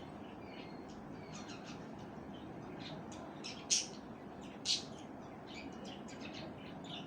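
Parrot chirping: a run of short, high calls over a steady hiss, with two louder, sharper calls about a second apart in the middle.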